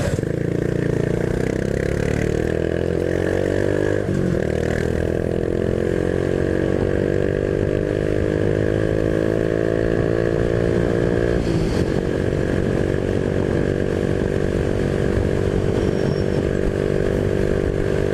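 Honda Biz 125's single-cylinder four-stroke engine pulling under acceleration, its pitch rising steadily, breaking at a gear change about four seconds in and again about twelve seconds in, then holding a steady pitch.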